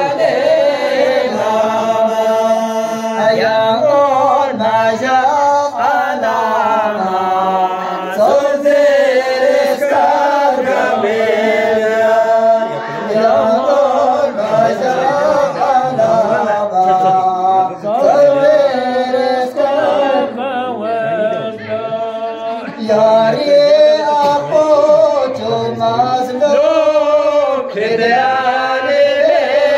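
Two men's voices chanting a melodic verse without instruments, with a few brief breaths between lines.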